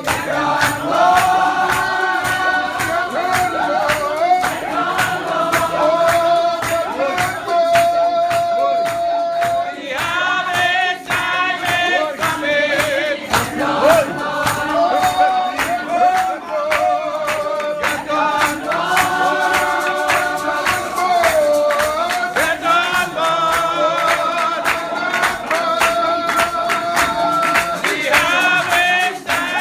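A Spiritual Baptist congregation singing a hymn together in repeating phrases of long held notes, over a fast, steady percussive beat.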